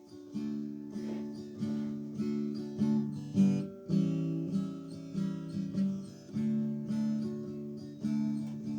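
Guitar strumming chords alone, about one strum every half second or so, each chord ringing and fading before the next: the instrumental intro of a country song before the singing comes in.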